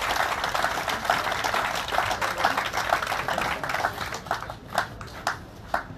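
A small crowd applauding a speaker who has just finished, thinning to a few scattered claps near the end.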